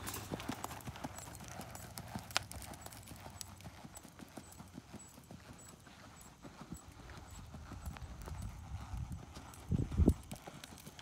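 Horse's hoofbeats on the sand footing of a riding arena, fading as the horse moves away and growing louder again as it comes back. A short, loud, deep thump near the end.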